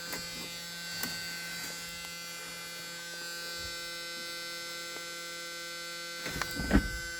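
Steady electrical hum-buzz with a few sharp clicks near the end, and no engine turning over: the machine's battery is dead, with loose battery terminals.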